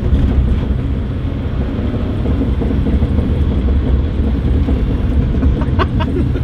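Daihatsu Mira kei car heard from inside its cabin while drifting on PVC rings fitted over the rear tyres: engine running steadily under a continuous rumble of road and tyre noise.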